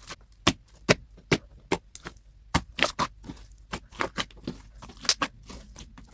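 Slime being squished and poked by hand, making a string of sharp, wet clicks and pops at an irregular two to three a second.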